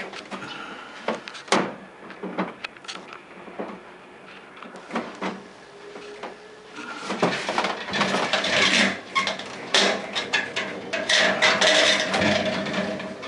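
Plastic clicks, knocks and scraping as the intake cover of a portable air conditioner is pried and worked loose by hand. Scattered at first, then busier and louder in the second half.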